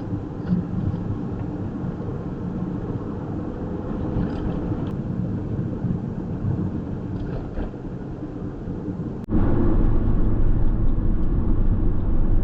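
A vehicle driving, with steady engine and road rumble. About nine seconds in, a cut brings a louder, deeper rumble.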